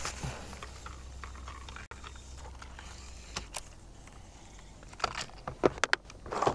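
Handling noise from a baitcasting rod and reel: scattered light clicks and knocks, with a cluster of sharper clicks near the end, over a faint low rumble that drops away about two seconds in.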